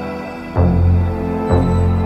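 Instrumental synth-pop music: sustained synthesizer chords, with two deep bass notes entering about half a second and a second and a half in.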